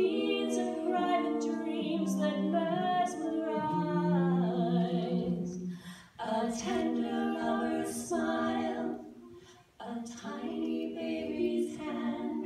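Three women singing a cappella in harmony, holding long sustained notes, with brief breaks between phrases about six and ten seconds in.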